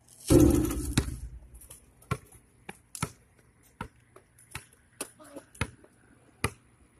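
A loud clatter about a third of a second in, then a basketball bouncing on pavement: sharp single bounces at an uneven pace, a little under one to two a second, as it is dribbled along the street.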